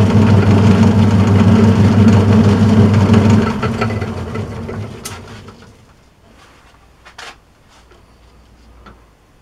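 Turnell & Odell metal lathe running on its slow speed with a steady motor hum, switched off about three and a half seconds in and coasting down to a stop over the next two seconds. A few light clicks and one sharper knock follow.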